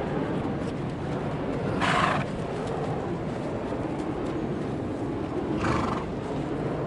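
A wild horse snoring in deep sleep: two short, noisy snoring breaths about four seconds apart, over a steady low rumble.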